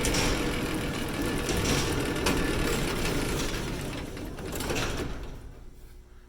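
A steady mechanical running noise with scattered clicks and rattles that dies away about five seconds in.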